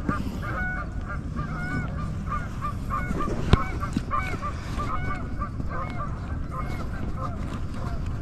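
Geese honking over and over, short calls coming several a second, over a steady low rumble. A single sharp knock about three and a half seconds in.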